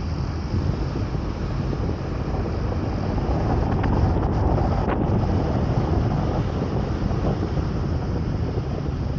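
A vehicle running steadily, with a low rumble and wind buffeting the microphone. Two faint clicks come about four and five seconds in.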